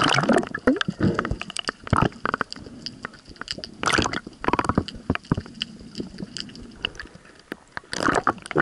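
Seawater sloshing and bubbling against an action camera's waterproof housing as it goes under and back up through the surface, with many sharp crackles and clicks. Louder bursts come at the start, about two and four seconds in, and near the end.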